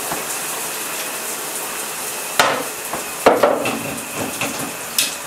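Metal clinks of a wrench knocking against the old shower head and shower arm as it is fitted on to unscrew it: three sharp clinks, about a second apart near the middle and end, over a steady hiss.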